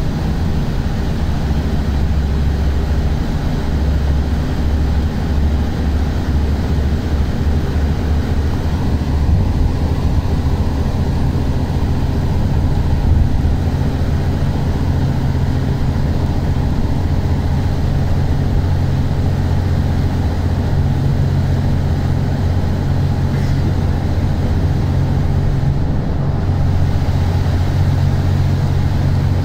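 Steady low rumble of engine and tyre road noise heard from inside the cabin of a moving road vehicle at speed.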